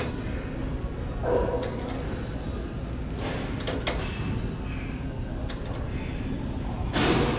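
Gym cable machine being worked through repeated ankle-strap kickbacks: the weight stack and pulley knock and slide every second or two over a steady low hum.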